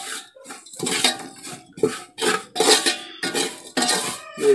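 Metal spoon scraping and clinking against an aluminium pot in repeated irregular strokes, stirring mushrooms coated in dry spice powders.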